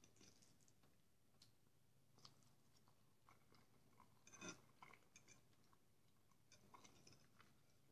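Near silence with a few faint clicks of a metal fork against a clay bowl and quiet chewing of meat aspic (kholodets); the loudest click comes about four and a half seconds in.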